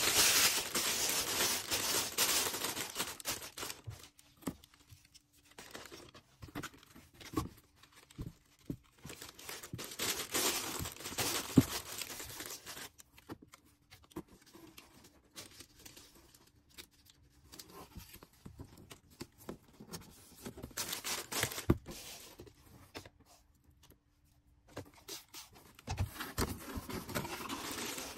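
Packaging being handled while an order is packed: plastic rustling and crinkling, with stretches of tearing and scattered small taps and clicks in quieter gaps. The handling is loudest in the first few seconds and again near the end.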